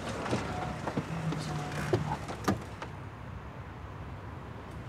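Passenger van's door opened and people climbing out: a few sharp clicks and knocks with rustling, and a brief low hum about a second in.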